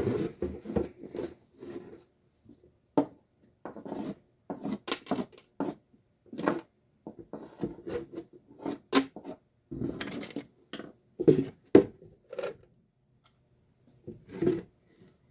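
Irregular scraping, rustling and clicking of hands working inside a garage door opener's power head, pulling out mouse-nest debris, with a few sharper clicks among them.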